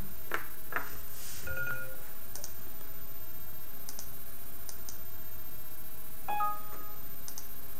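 Computer mouse clicks and two short electronic system chimes; the second chime, a few stacked tones about six seconds in, sounds as the software again reports that it cannot connect to the robot.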